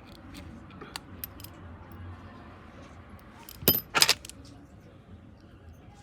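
Small metal repair tools and parts clicking on the work surface: light scattered ticks, then two loud metallic clinks in quick succession a little over halfway through.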